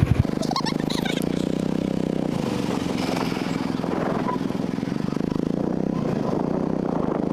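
A vehicle engine running at a steady speed, an even hum with no change in pitch.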